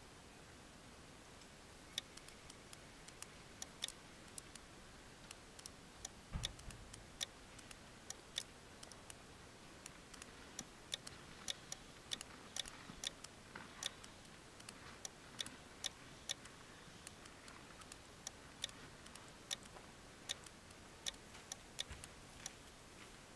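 Light, irregular clicks from fingers working the controls of a portable ham radio transceiver, several a second at times, with a soft low thump about six seconds in.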